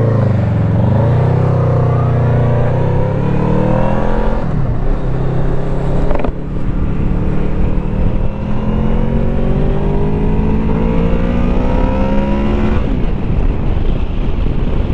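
Honda VFR800F's V4 engine accelerating up through the gears: the engine note climbs and falls back three times, about four, six and thirteen seconds in.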